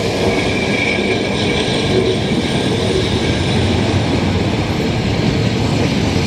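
Vintage narrow-gauge passenger carriages rolling past close by, their wheels giving a steady rumble on the rails. A faint high wheel squeal comes in about a second in.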